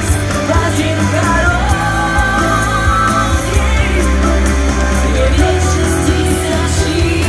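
Pop song with full band backing and drums, with a singing voice over it.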